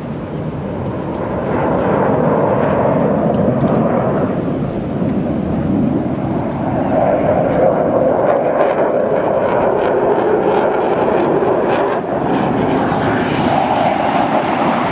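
Engine roar of a low-flying air-show airplane passing over the water. It swells about two seconds in and stays loud, with a pitch that slides as the plane goes by.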